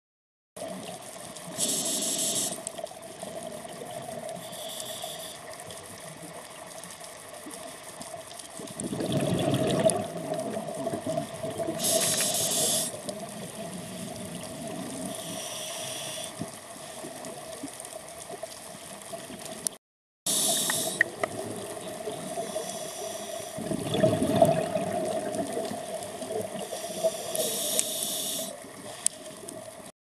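Underwater recording of a scuba diver breathing through a regulator: a hissing intake breath and a rush of exhaled bubbles, repeating roughly every ten seconds over a steady hum. The sound cuts out briefly about two-thirds of the way through.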